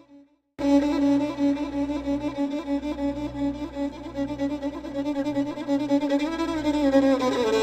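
Music of long held notes, likely a bowed string instrument. It cuts out briefly just after the start, then resumes, with a sliding note near the end.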